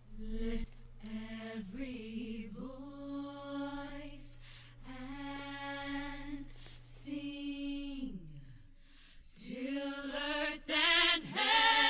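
Wordless a cappella singing: voices holding long notes, one note sliding down in pitch about eight seconds in, then several voices coming back louder near the end.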